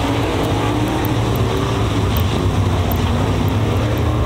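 A pack of dirt-track modified race cars' V8 engines running hard together at racing speed. It is a loud, steady drone of several engines at once, their pitch wavering as the cars go through the turn.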